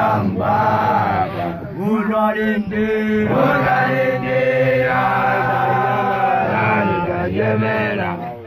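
A chorus of Basotho male initiates (makoloane) chanting together in an initiation song: many men's voices on long held notes over a low steady drone, with short breaks between phrases.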